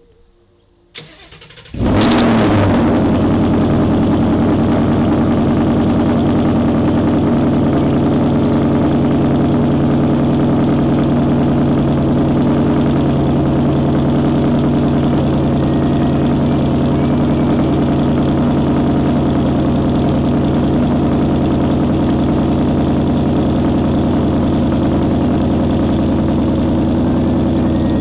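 Ford Mustang GT's 5.0-litre V8 cold-starting about two seconds in. It catches with a brief flare of revs, then settles into a steady idle.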